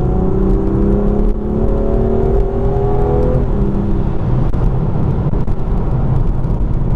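BMW M2 Competition's twin-turbo straight-six heard from inside the cabin, its revs climbing steadily under acceleration. About three and a half seconds in the revs fall away, and it settles into a steady low drone with road noise.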